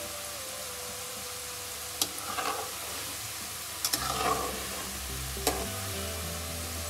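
White namkeen dough pieces deep-frying in hot olive oil in an aluminium kadai, with a steady sizzle. A slotted metal spatula stirs them, knocking sharply against the pan three times and scraping through the pieces.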